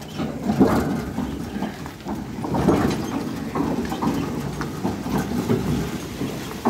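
Engine of an old home-made concrete mixer running, an uneven mechanical chugging.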